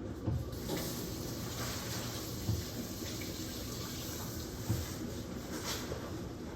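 Liquid running in a steady hissing stream for several seconds, with a few soft knocks of kitchenware.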